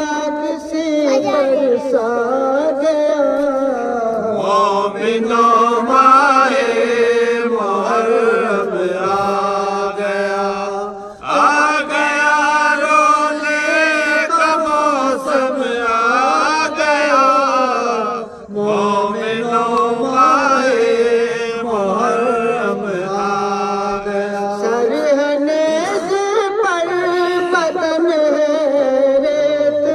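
Men's voices chanting a noha, a Muharram lament, in a slow melodic line of long held notes that bend up and down, with short breaths about eleven and eighteen seconds in.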